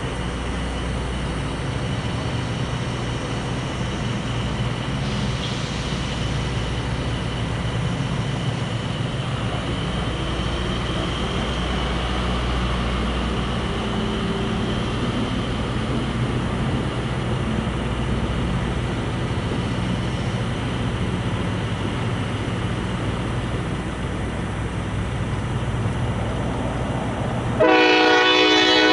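Diesel locomotive running with a steady low rumble, then its air horn sounding a loud chord near the end.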